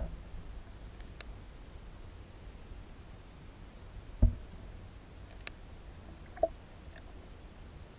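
Muffled underwater ambience picked up by a submerged camera: a low rumble with faint scattered clicks, and one sharp low thump about four seconds in.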